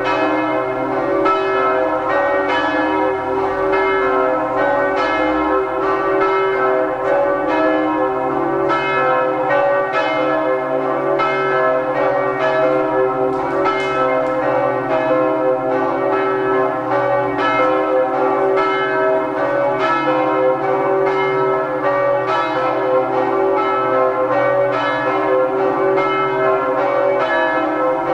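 Several church bells ringing together in a continuous full peal, their strikes overlapping densely at a steady loudness.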